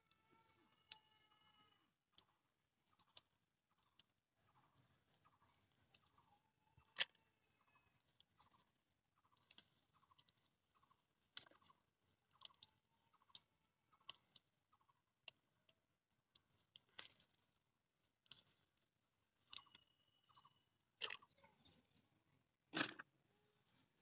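Faint clucking of hens, a short note repeated about twice a second, mixed with scattered sharp snaps and clicks as green chillies are picked off the plants; the loudest snap comes near the end. A brief run of high bird chirps comes about five seconds in.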